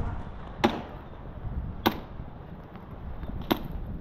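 Three sharp snaps of airsoft gunfire, single shots about a second and a half apart, over low wind rumble on the microphone.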